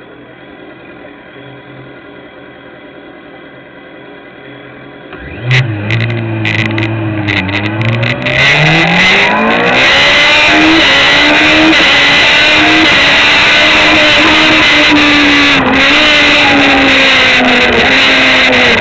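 Racing motorcycle engine ticking over quietly, then about five seconds in it is revved hard and the bike launches. It climbs through the gears with its pitch rising and dropping at each shift, then holds high revs at speed, heard through a camera mounted on the bike.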